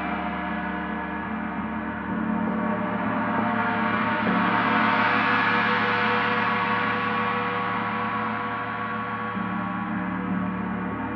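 Paiste Saturn planetary gong, tuned to 147.85 Hz (D), ringing in a sustained wash of many overtones. It swells about two seconds in, grows brighter and loudest around the middle, then slowly fades.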